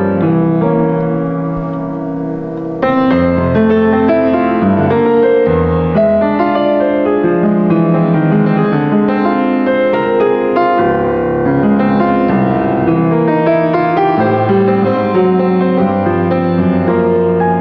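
Piano played solo, chords under a melody line; it starts soft and grows fuller about three seconds in.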